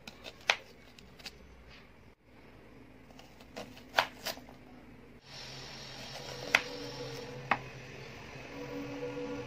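Kitchen knife cutting a red onion on a wooden chopping board: a handful of short, sharp knocks as the blade goes through and meets the board, coming singly and in pairs a second or more apart.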